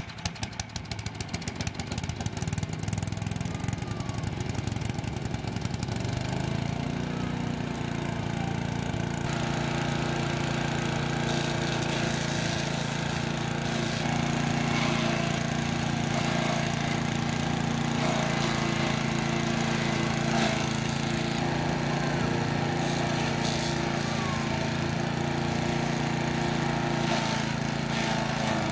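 Small gas engine of a wood chipper-shredder running rough and uneven just after starting, then speeding up about six seconds in and settling into a steady run at high speed.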